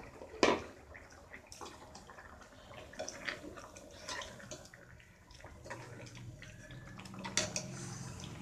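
Steel spoon stirring thick egg kurma gravy in a stainless steel pan: wet sloshing with several sharp clinks of metal against the pan, the loudest about half a second in.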